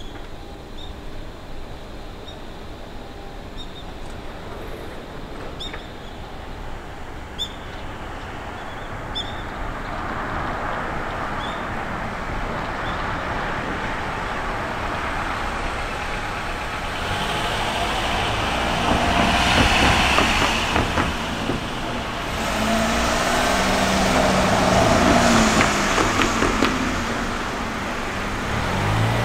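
Cars driving past on the road and over the level crossing, one after another; the noise swells to a peak about two-thirds of the way in, dips, then rises again as more vehicles pass. Faint short high chirps in the first several seconds.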